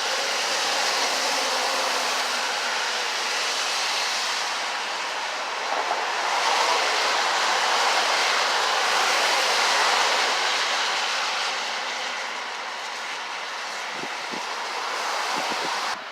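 Blizzard wind blowing hard, a steady loud rushing that swells for a few seconds and then eases. A few soft knocks come near the end.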